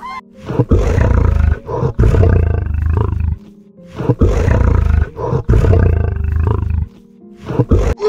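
A lion roaring: two long roars of about three seconds each, then a short one near the end, over background music.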